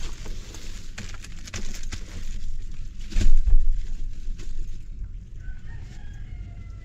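Scattered knocks and clatter, the loudest a dull thump about three seconds in, then a rooster crowing near the end.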